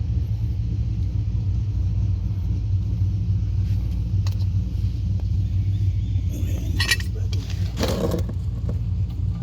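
Steady low rumble throughout. Over it, a few light clicks and scrapes of metal brake caliper slide bolts being handled and greased: one about four seconds in, and a louder cluster near the end.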